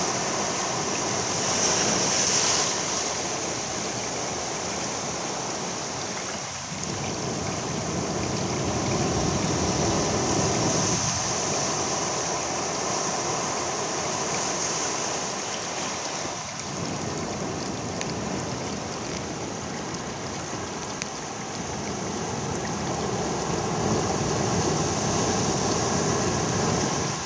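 Sea waves washing and breaking on a rocky shore. A continuous rushing surf that swells and ebbs over several seconds, loudest about two seconds in, around ten seconds in and again near the end. A steady high hiss runs over it.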